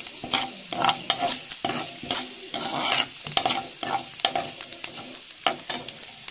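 Metal slotted ladle stirring urad dal and mustard seeds frying in hot oil in a kadai. Repeated scrapes and clinks sound over a steady sizzle as the dal is fried until it turns reddish, at the tempering stage.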